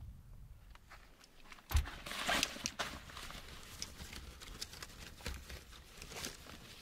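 A single thump about two seconds in, then rustling of fabric and small clicks as hands rummage through a canvas duffel bag.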